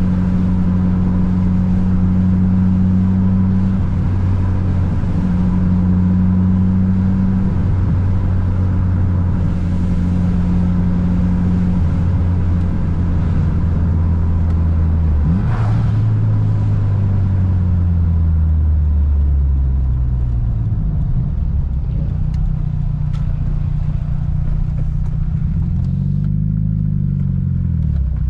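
Turbocharged Mitsubishi Lancer Evolution VIII engine (4G63 inline-four, tuned to about 400 hp) running steadily under way. About halfway through its pitch jumps up and then slowly falls, and near the end there are a few quick revs up and down.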